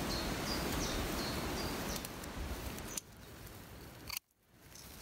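Pruning secateurs cutting a nettle stem at its base among dry undergrowth: rustling and handling noise that drops in level about three seconds in, then a sharp snip about four seconds in, after which the sound cuts off for a moment.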